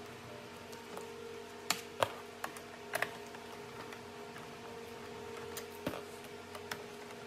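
A handful of sharp light clicks and taps as a Torx (star-bit) screwdriver works the screws out of a Pontiac Fiero gauge cluster's plastic surround, loudest about two seconds in.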